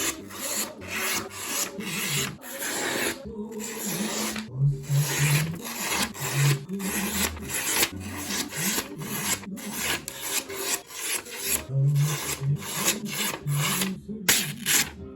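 Balisong blade slicing through paper in a sharpness test: a string of short rasping cuts, about two a second. The blade is razor sharp.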